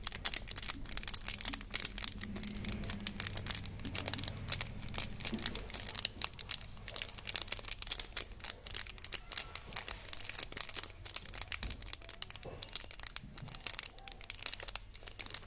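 Crinkly foil-lined plastic candy wrapper crackling as fingers squeeze and turn the sealed pack, a dense run of small irregular crinkles.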